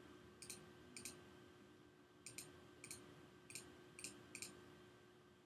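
Faint computer mouse clicks, about seven short clicks at uneven spacing, over quiet room tone.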